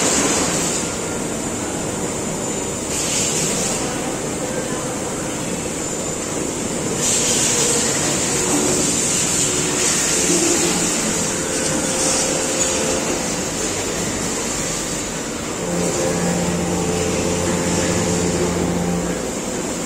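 Hartford VMC-1600A CNC vertical machining center running, a steady machine noise with several hissing bursts. A steady low hum comes in about three-quarters of the way through.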